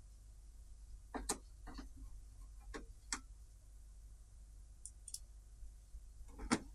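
A few scattered light clicks and knocks from tools and TV parts being handled during reassembly, the loudest about a second in, about three seconds in and near the end, over a faint low hum.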